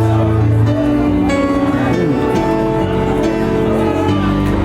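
Slow background music of held chords that change every second or two, with a few plucked guitar notes.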